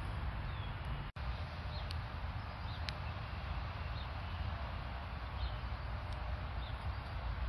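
Outdoor ambience during snowfall: a steady low rumble and hiss, with a few faint, short bird chirps scattered through. The sound cuts out for an instant about a second in.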